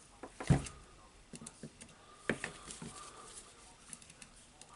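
Needle-nose pliers and a carbon brush lead worked at a rotary hammer's plastic brush holder: a scatter of light clicks and taps, with one heavier knock about half a second in.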